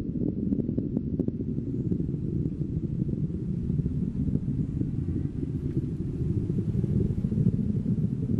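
Falcon 9 rocket engine rumble heard from the ground, a steady deep rumble with a few sharp crackles in the first second.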